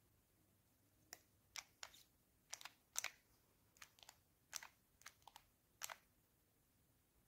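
A silver-capped cosmetic bottle handled and turned in the hands: about a dozen small, irregular clicks and taps, the loudest about three seconds in.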